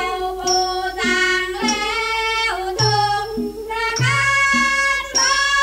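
Thai classical music from an old LP: a female chorus singing a long, gliding melodic line with a piphat ensemble, to a steady pulse a little over once a second.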